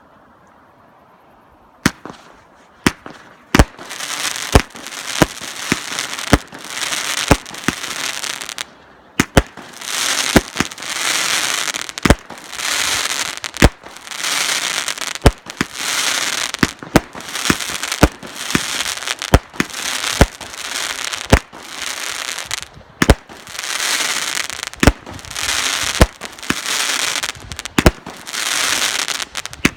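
A Victory Fireworks "Thunderstorm" 25-shot cake firing shot after shot, about one a second, starting about two seconds in. Each shot is a sharp report followed by a spell of crackling from its burst.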